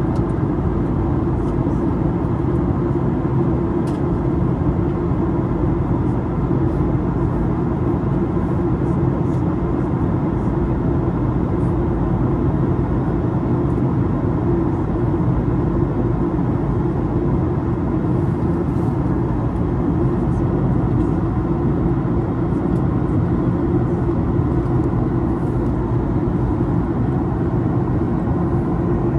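Steady cabin drone of a Boeing 737-800 in flight, with its CFM56 engines and the airflow over the fuselage: a deep, even rumble with no changes, heard during the descent.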